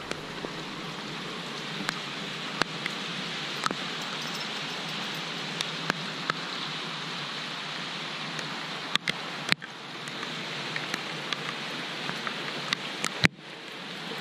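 Steady rain falling, an even hiss, with scattered sharp ticks.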